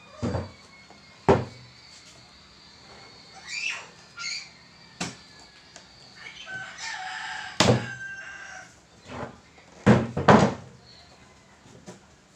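Speaker cabinets being handled and set down on a wooden bench: a series of knocks and thumps, the loudest ones near the end. A rooster crows in the background partway through.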